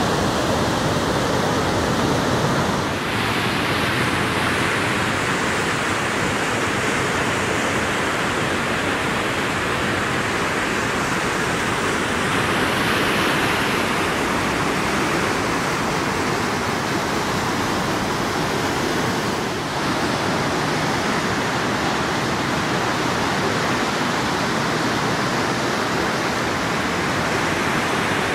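Rain-swollen floodwater pouring over a lake spillway: a steady rush of churning, white-capped water.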